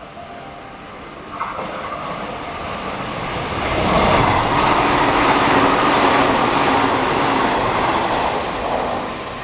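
Sanyo Electric Railway electric train running along the platform track. It comes in suddenly about a second and a half in, is loudest for several seconds in the middle, then eases off near the end.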